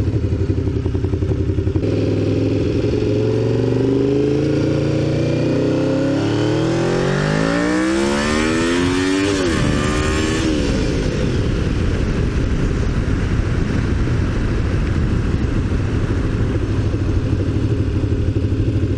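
Honda VFR V4 motorcycle engine idling, then revved slowly up over about seven seconds and dropping quickly back to a steady idle about ten seconds in.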